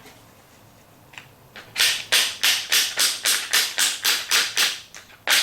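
Quick, regular hammer taps, about three or four a second, driving the washing machine door handle's pin home through the spring, pecker and handle. A run of about a dozen taps begins a couple of seconds in, then a short pause, then a few more.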